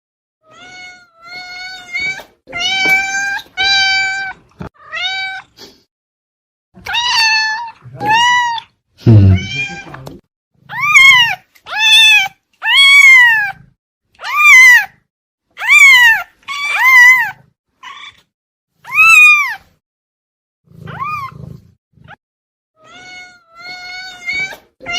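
Domestic cat meowing over and over, about one call a second. Some calls hold a level pitch, and louder ones rise and then fall, with one lower, rougher call about nine seconds in.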